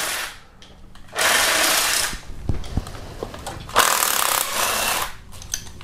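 Power ratchet running in two bursts of about a second each, backing out the 10 mm bolts holding the fuel rail, with a few light clicks between the bursts.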